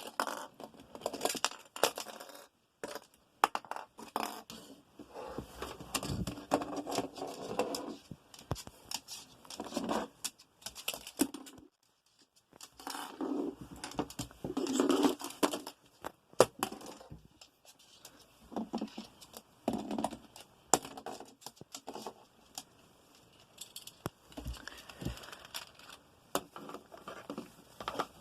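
Cockatoo's beak working at a plastic Rubik's cube: irregular clicking, scraping and crackling in bursts, with brief pauses.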